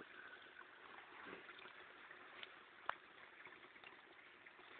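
Near silence: faint outdoor background, with one short sharp click about three seconds in.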